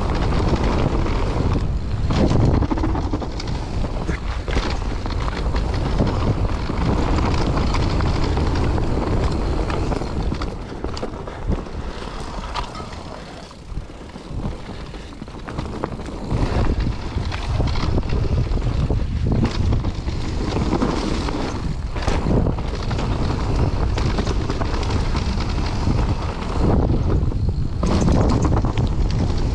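Wind buffeting the camera microphone and mountain bike tyres rumbling over a dirt trail on a fast descent, with frequent rattles and knocks from the bike over roots and bumps. It eases briefly about halfway through, then picks up again.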